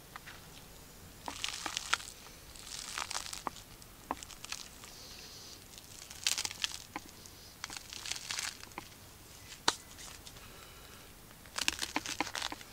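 Crisp toasted bread crust crackling and crunching in short bursts as hands press down on a ham and cheese sandwich on a wooden board, with a few sharp clicks. Near the end a knife starts sawing through the crust, a denser run of crunching.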